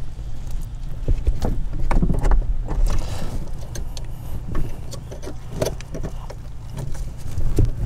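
Scattered small metal clicks and scrapes as a screwdriver pries at the steel retaining clip on the brake pedal pushrod, over a steady low rumble.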